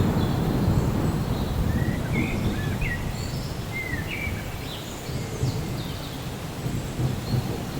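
Thunder rumbling and slowly fading under steady rain. A bird chirps a series of short calls in the middle.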